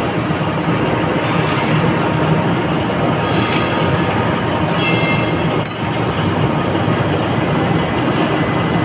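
Steady, loud mechanical background noise with a single sharp clink about five and a half seconds in.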